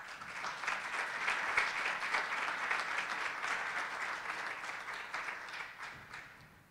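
Audience applauding, many hands clapping at once; it starts right away, swells over the first second or two, and dies away over the last couple of seconds.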